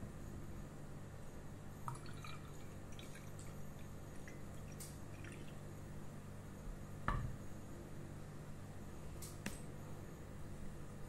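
Tea poured from a black cast-iron teapot into a glass, trickling and dripping, over a low steady hum. A light knock about seven seconds in.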